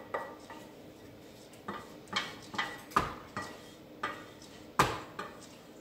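A kitchen utensil scraping and knocking against the inside of a stainless steel saucepan, with about ten sharp, ringing clinks. This is the last of the cake batter being scraped out. It is quieter for about a second near the start, and the loudest knock comes near the end.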